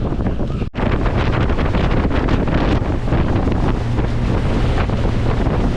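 Wind buffeting the microphone aboard a sport-fishing boat at sea, over the rush of water and the boat's low rumble. The sound drops out for an instant just under a second in.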